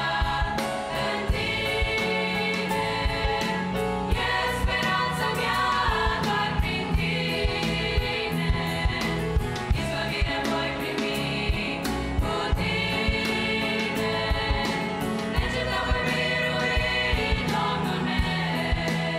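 Girls' choir singing a hymn in Romanian in several parts, with piano accompaniment and a steady beat of sharp accents.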